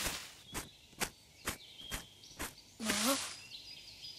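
Cartoon footstep sound effects, light taps about two a second, followed about three seconds in by a short rustle of leaves with a brief rising voice-like sound.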